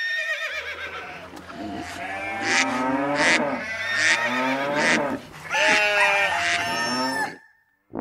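Overlapping farm animal calls, mostly bleating livestock, several at once, stopping suddenly near the end.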